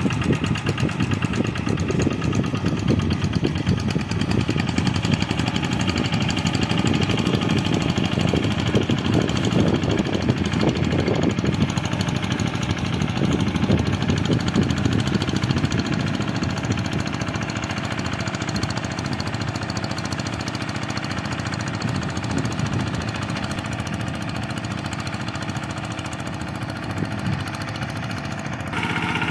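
Kubota RD85 single-cylinder diesel engine of a Quick G1000 two-wheel hand tractor running steadily under load as it pulls a harrow through a flooded rice paddy, with a rapid even chugging. It grows quieter about halfway through and is suddenly louder again just before the end.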